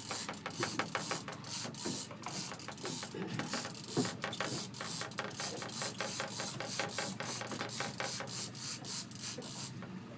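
Fishing reel clicking rapidly and evenly, about six clicks a second, with a salmon on the line.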